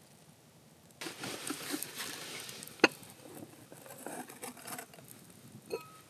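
Close rustling and small clicks and knocks from hands handling camp cooking gear, starting abruptly after about a second, with one sharp click about three seconds in.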